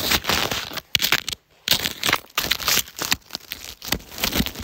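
Puffer jacket fabric rustling and rubbing close to the microphone as the wearer shifts position, in a run of loud, scratchy bursts.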